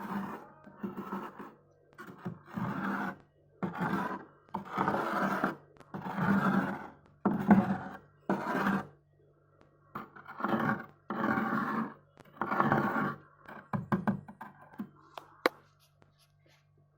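A bowl's edge scraping frost off the inside of a freezer, about a dozen rough strokes of half a second to a second each, separated by short pauses. The scraping stops near the end, followed by a single sharp click over a faint steady hum.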